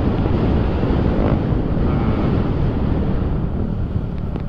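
Heavy wind rumble on the microphone of a moving scooter. Underneath it the Yamaha NMAX's engine runs through its AHM aftermarket exhaust at road speed.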